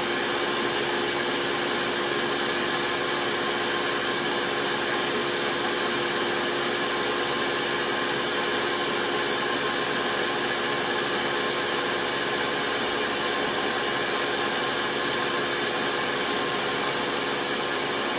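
Countertop blender running steadily, a constant whirr with a high motor whine, blending fresh turmeric root with water.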